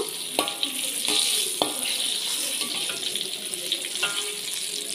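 Brinjal (eggplant) pieces sizzling in hot oil in a wok, with a metal spatula clinking against the wok about four times as the fried pieces are lifted out.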